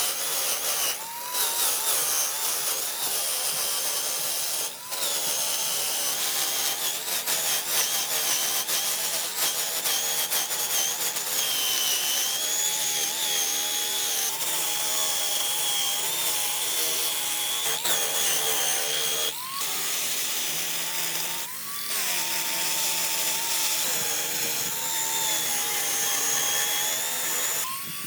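Handheld electric power tool working wood: a steady motor whine that sags under load and climbs back whenever the tool briefly comes off the wood, several times through.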